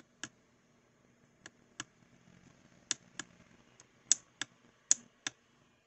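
About ten small plastic clicks from the push button on an XTAR VC2L charger being pressed and released, several in quick pairs, the loudest near the end, as the charging current setting is cycled.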